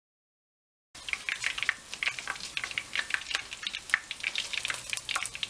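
Chicken wings deep-frying in hot oil in a skillet: a dense, steady crackle and sizzle of popping oil. It starts abruptly about a second in, after a silent gap.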